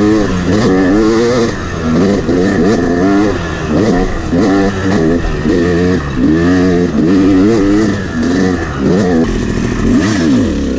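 Yamaha YZ250 single-cylinder two-stroke dirt bike engine being ridden hard. The revs rise and fall about once a second as the throttle is worked on and off. The engine has just had its top and bottom end rebuilt.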